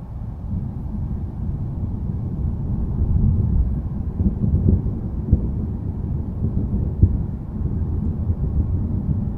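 Thunder rumbling: a low, rolling rumble that swells a few seconds in, with a couple of short sharp cracks in the middle.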